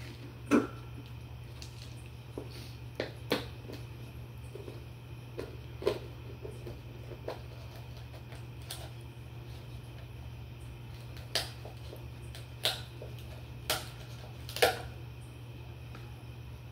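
Close-up sounds of drinking a thick milkshake from a plastic cup with a lidded straw: short sips or swallows and clicks and rustles from the plastic cup and straw being handled, scattered irregularly over a steady low hum.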